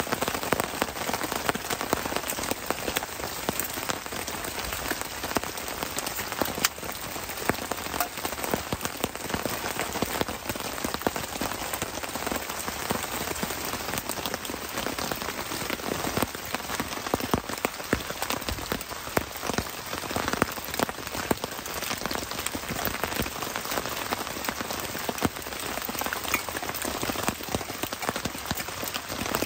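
Steady rain pattering on a tarp shelter and the ground around it, a dense patter of individual drops.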